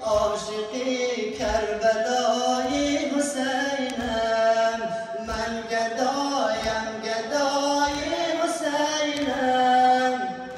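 Voices chanting a Shia nauha (Muharram lament) in long, held sung lines, with low thumps about every second and a half from the mourners' chest-beating (sineh-zani).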